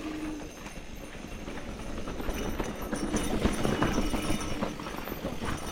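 Mountain bike rolling over a rough dirt and rock trail: tyres crunching and the frame and drivetrain rattling in quick irregular knocks, with wind rumbling on the microphone. It gets busier and louder past the middle.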